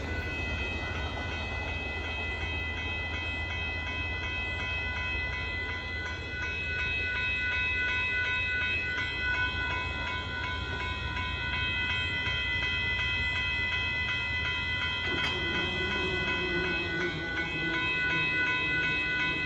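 Amtrak Texas Eagle passenger train rolling past a grade crossing, its wheels rumbling and clacking over the rails, while the crossing's warning bell rings steadily throughout.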